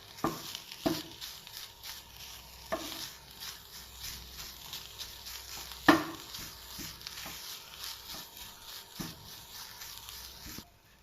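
Shredded chicken and mashed potato masala being stirred in a pan of hot coconut oil, sizzling lightly, with irregular scrapes and knocks of the utensil against the pan. The loudest knock comes about six seconds in, and the sound cuts off suddenly shortly before the end.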